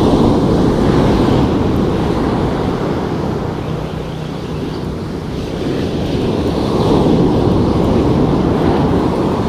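Ocean surf breaking and washing up a sand beach, with wind rumbling on the microphone. The wash swells near the start and again about two-thirds of the way through.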